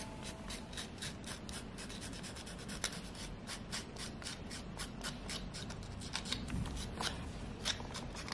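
Sandpaper rubbed back and forth along the cut edge of vegetable-tanned calfskin leather, in quick repeated scraping strokes, several a second.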